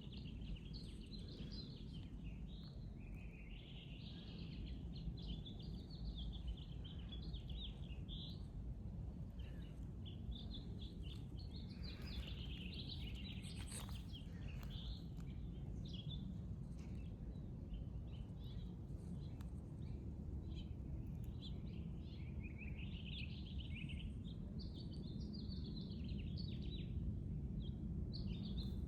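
Songbirds chirping and twittering in short, busy phrases, over a steady low rumble of background noise.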